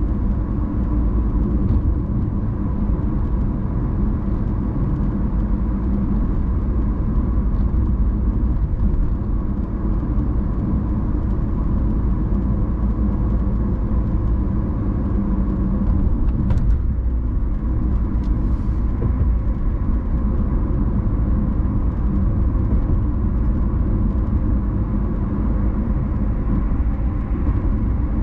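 Car driving along at low speed: a steady low rumble of engine and road noise, with two brief faint higher-pitched sounds about two-thirds of the way through.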